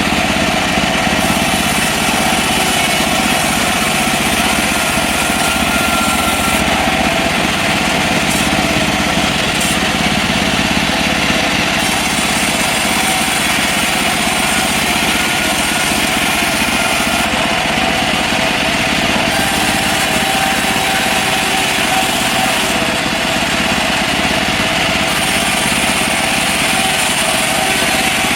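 Engine-driven portable bandsaw mill running steadily under load, sawing a mahogany log.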